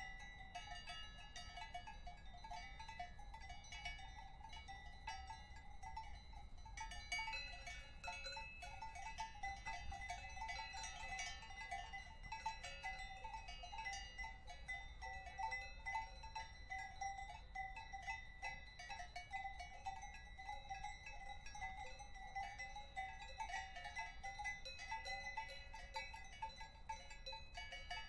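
Several cowbells clanking irregularly at a few different pitches, making a continuous jangle of overlapping clanks. More bells join in about a quarter of the way through.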